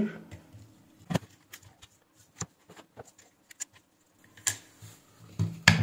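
Sparse small clicks and taps of plastic and metal as hands work the coin-cell battery holder board loose from a digital bathroom scale's opened plastic base.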